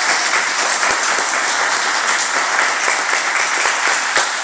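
A group of people applauding: dense, steady hand clapping that starts to die away right at the end.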